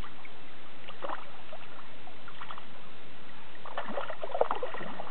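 Hooked rainbow trout splashing at the surface beside the landing net, in short bursts about a second in and around two and a half seconds, then a longer flurry near the end.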